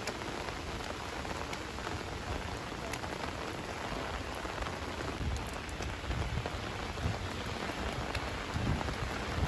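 Steady rain falling, an even hiss with scattered sharp drop ticks. Low rumbles come and go in the second half.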